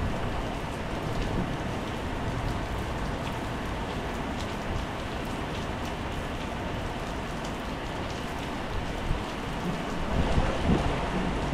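Steady heavy rain falling on a wet tiled patio, a constant hiss with scattered drop ticks. A low rumble swells near the end.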